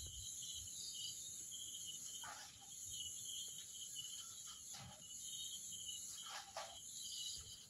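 Night insects, crickets, chirping steadily in a faint chorus, with a pulsing trill under a higher steady hiss. A few brief, faint sounds break in at about two, five and six and a half seconds.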